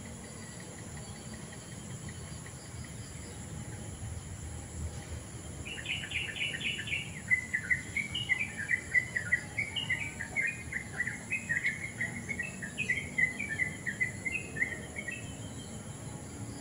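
A songbird sings a long run of quick chirping notes, starting about six seconds in and lasting roughly nine seconds. It sings over a steady high insect drone.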